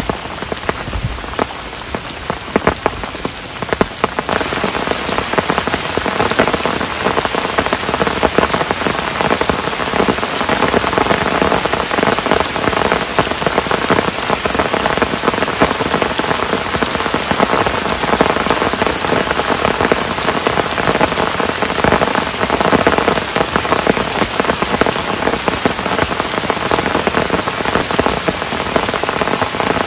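Heavy rain falling steadily, a dense hiss with many close drop hits. The hiss grows brighter and more even about four seconds in.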